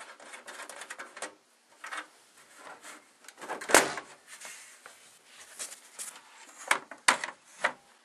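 Handling noise from a computer case and its metal CPU-cooler backplate bracket: scattered clicks and knocks as the case is stood upright and the bracket is held against the back of the motherboard, with one louder knock about four seconds in.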